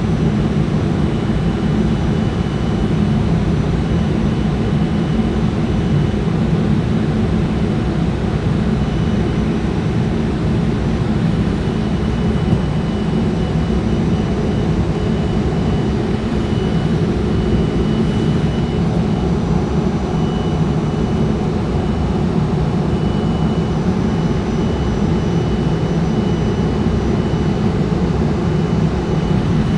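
Jet airliner engines and rushing air heard from inside the passenger cabin, a steady deep rumble with a faint thin whine above it, during the climb after takeoff.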